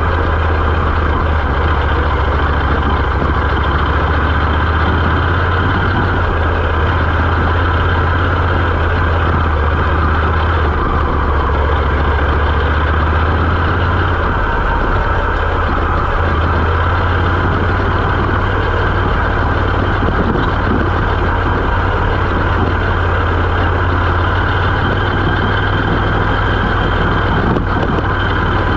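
Moto Morini X-Cape 650's parallel-twin engine running steadily under way on a forest road, with wind and road noise over it. The engine note shifts about halfway through.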